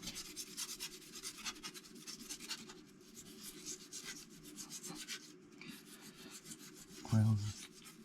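Oiled steel wire brush scrubbing an engine part: a rapid run of scratchy back-and-forth strokes with a brief pause a little after five seconds.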